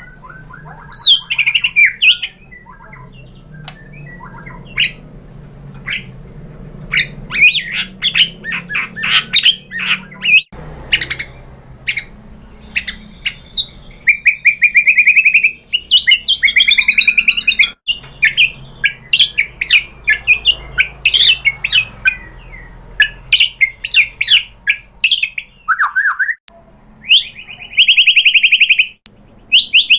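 White-rumped shama singing a long, varied song of quick whistled notes, sweeps and chattering phrases, loud and nearly unbroken. It is softer for a few seconds near the start, and a fast buzzing rattle comes near the end.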